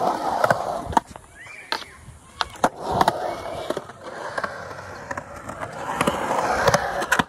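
Skateboard wheels rolling over smooth concrete, swelling and fading as riders pass, with a run of sharp clacks from the boards.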